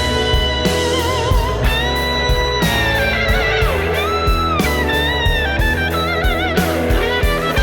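Blues music, an instrumental passage: an electric guitar plays a lead line of held, bent notes with wide vibrato over a steady bass line and a regular beat.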